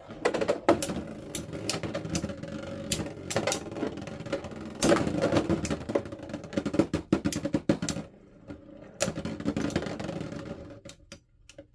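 Two Beyblade X spinning tops, Wand Wizard and Shadow Shinobi, whirring and clashing in a plastic battle stadium, with a rapid clatter of hits and scraping. There is a brief lull partway through, and the clatter dies down near the end.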